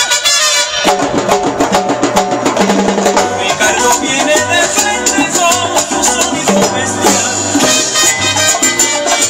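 Salsa music: timbales and cymbal struck in a steady beat over bass and shaker. For about the first second only the percussion plays, then the bass comes back in.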